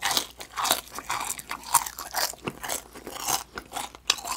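A person chewing a mouthful of crispy deep-fried chicken skin: a quick, irregular run of crisp crunches, about three a second.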